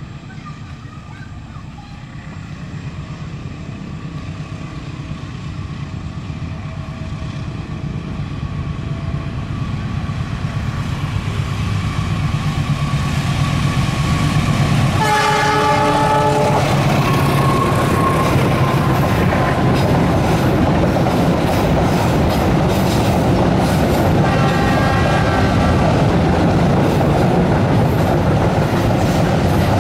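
Diesel locomotive hauling a freight train of open wagons, approaching and growing steadily louder, with its engine running throughout. It sounds its horn for about a second and a half halfway through, and again more briefly about ten seconds later, while the wagons rumble and clack past.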